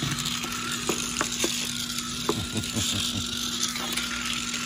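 Zuru Robo Alive Slithering Snake robotic toy running, its small geared motor giving a steady hum, with scattered clicks and ratcheting as its plastic body segments swing.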